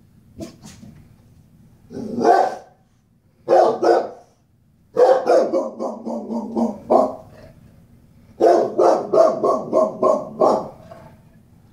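Boxer dog alarm-barking at a knock on the door heard on the TV: a couple of single barks, then two runs of rapid barks in quick succession.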